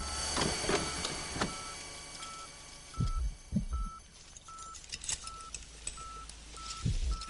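Steady electronic beeping, about two short beeps a second, all at the same pitch. Scattered clicks and a few low knocks are heard over it.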